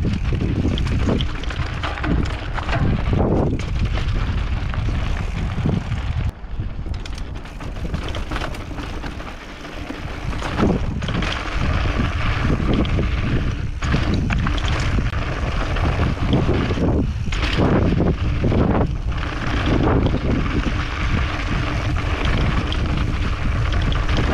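Mountain bike descending a dirt and gravel trail: heavy wind buffeting on the microphone over tyre noise on the dirt and many short knocks and rattles from the bike over bumps. It drops quieter for a few seconds about a third of the way in.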